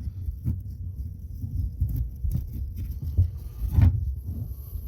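Low thumps and light clicks of hands handling a Work Sharp belt knife sharpener, pressing down on it to release the belt's tension; the motor is not running.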